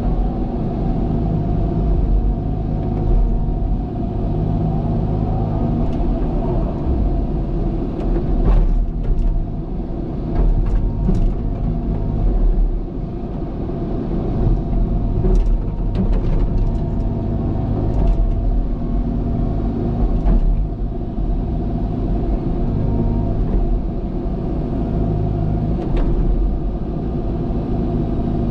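Cat excavator's diesel engine running steadily while digging, with scattered sharp knocks and clanks from the working machine.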